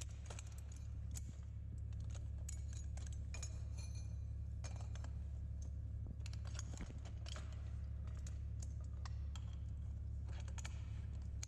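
Scattered small metal clicks and clinks from handling the TerrAdaptor's legs, leg clamps and pins during assembly, over a steady low hum.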